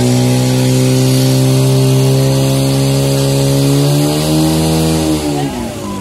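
Portable fire pump engine running flat out, driving water through the attack hoses. Its note drops and fades about five and a half seconds in as the pump is throttled back.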